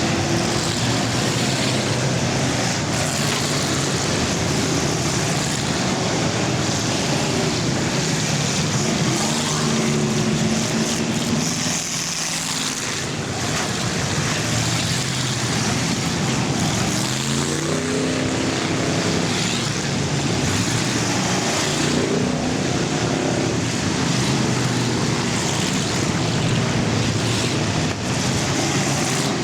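Pack of full-size cars racing in an enduro, their engines running hard in a steady din, with rising engine notes as cars accelerate past, clearest a little past halfway.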